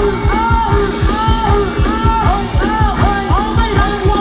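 Live band playing Thai ramwong dance music: a fast steady drum beat under a repeating melody, with singing.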